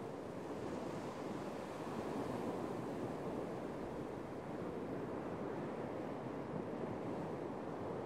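Small waves breaking and washing up a sandy beach: a steady, continuous surf.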